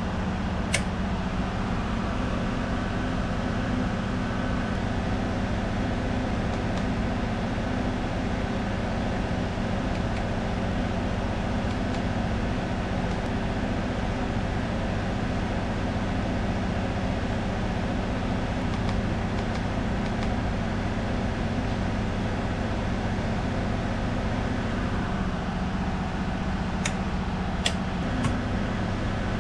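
Steady, low mechanical drone, like running machinery, with a few sharp clicks near the end.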